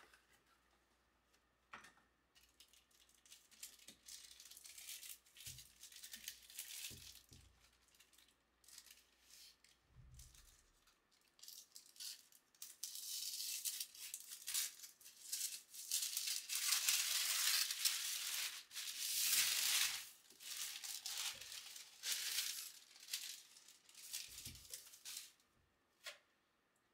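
Paper wrapping being handled, crinkling, rustling and tearing as it is pulled off a hardback book. It is loudest about halfway through and stops shortly before the end.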